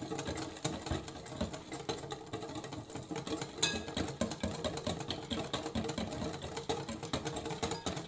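Electric mixer running steadily, its beaters churning a thin chocolate sauce of milk, sugar and cocoa as vegetable oil is drizzled in to blend it.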